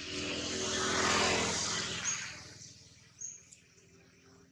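A motor vehicle passing, its noise swelling to a peak about a second in and fading away within about two seconds. A few short high bird chirps follow.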